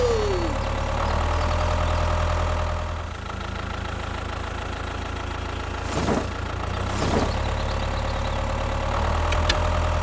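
Tractor engine sound running steadily at a low, idle-like chug. Two short swishes come about six and seven seconds in.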